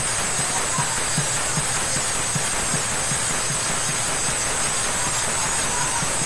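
Brass hand cymbals (jhal) clashing without a break, a dense metallic hiss, over dholak drum strokes at about two to three a second.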